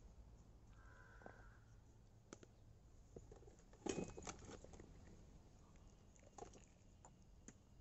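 Near silence with a few faint clicks and taps, the loudest cluster about four seconds in.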